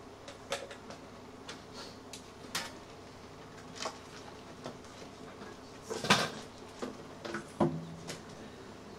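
Guitar and stage gear being handled: scattered light clicks and knocks, the loudest about six seconds in, with a short low string note about seven and a half seconds in.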